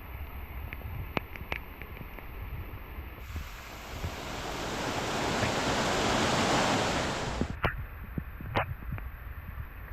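A rush of noise that swells over a few seconds, peaks and then cuts off, over a low rumble with scattered faint clicks.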